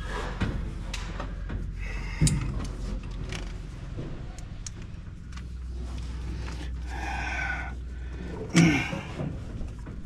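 Handling noises around a combine's engine compartment: scattered knocks, clunks and rattles over a low steady hum, with one louder clunk near the end.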